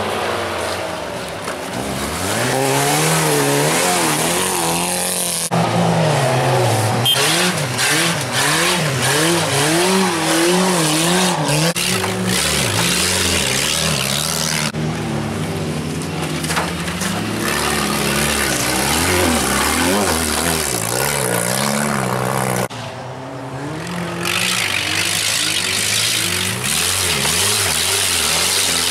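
Small hatchback wreck-race car engines revving hard on a dirt track, their pitch climbing and dropping over and over with throttle and gear changes. The sound changes abruptly at three cuts.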